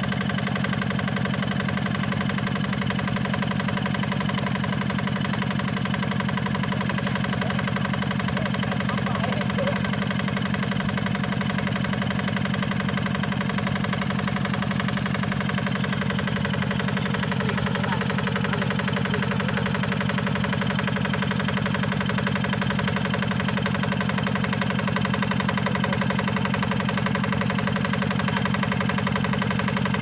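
Yanmar single-cylinder diesel engine on a two-wheel hand tractor running steadily at a constant speed.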